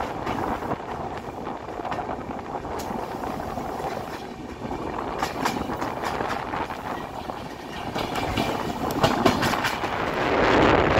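Passenger train running at speed, heard from an open coach door: a continuous rush of wheels on rails and wind. A run of sharp clicks comes in the second half as the wheels cross rail joints, and the rushing grows louder near the end.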